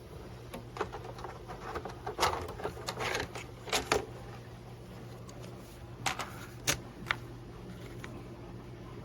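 Handling noises: a scattering of short clicks and rustles, busiest in the first half, with three sharp clicks about six to seven seconds in, over a steady low hum.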